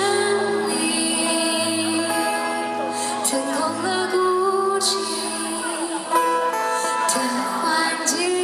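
Woman singing a melody with long held notes into a microphone, accompanying herself on a strummed acoustic guitar.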